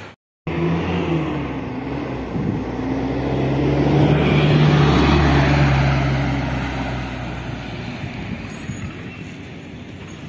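A minibus engine driving past, swelling to loudest about halfway through and then fading away.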